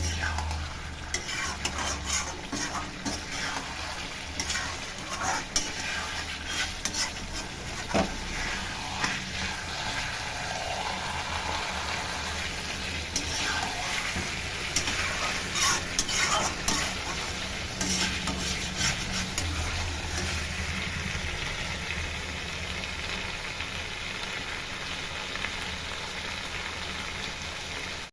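Food sizzling as it fries in a pan and is stirred, with a spoon clicking and scraping against the pan many times over a steady frying hiss.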